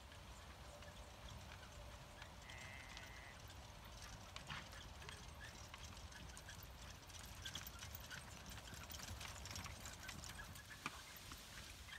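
Hoofbeats of a pair of horses trotting on grass while pulling a carriage, faint at first and getting louder as they pass close near the end. A brief high tone sounds about two and a half seconds in.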